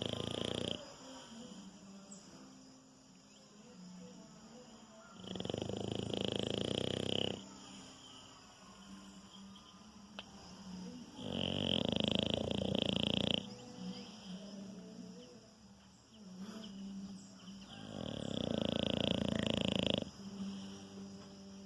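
French bulldog snoring in its sleep: loud snores about two seconds long come roughly every six seconds, with softer breathing sounds in between.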